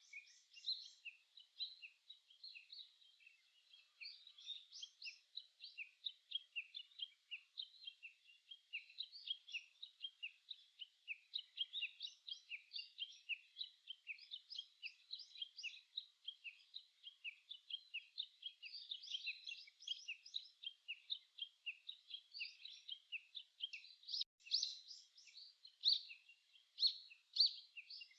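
Wild birds singing and chirping, many short high notes from several birds overlapping in a continuous chorus, a few louder calls near the end.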